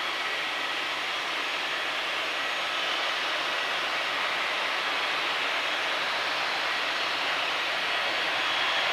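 Bombardier Global 6500 business jet's Rolls-Royce Pearl 15 turbofan engines running at low taxi power: a steady jet hiss with a faint high whine.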